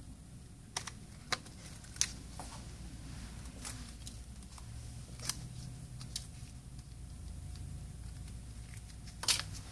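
Scattered light clicks and taps of small repair tools working at a smartphone's cracked screen to pry it open, about half a dozen spread over several seconds, over a low steady hum.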